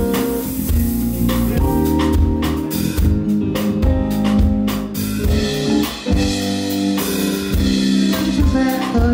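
A live rock band playing, with drum kit, electric bass and guitar, and the drums hitting at a steady beat.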